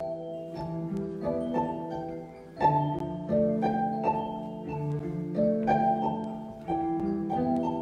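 Live instrumental music from a small band of violin, cello and electric guitar, with held notes and chords that change every second or so.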